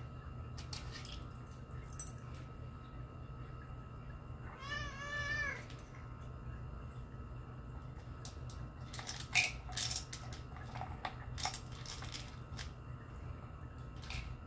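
A cat meows once, a single rising-and-falling call about five seconds in. Later comes a scatter of light clicks and knocks as the cat works the plastic cups of a food puzzle toy.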